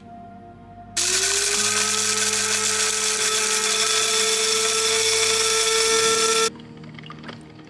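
Electric coffee grinder grinding roasted coffee beans for about five and a half seconds. The motor's whine rises briefly as it spins up, then holds steady under the loud grinding noise, and it cuts off suddenly when the button is released.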